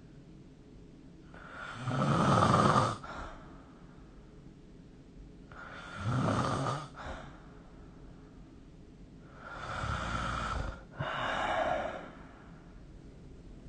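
A sleeping person snoring: three noisy breaths roughly four seconds apart. The first is the loudest, and the last comes in two parts with a short break between them.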